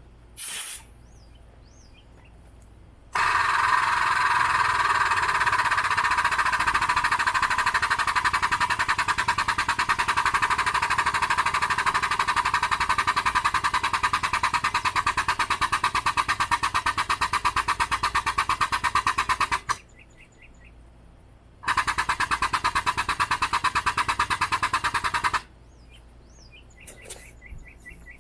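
Air-over-hydraulic press pump running, a fast even chatter, worked by its foot pedal: one long run of about seventeen seconds, then a shorter run of about four seconds after a short pause.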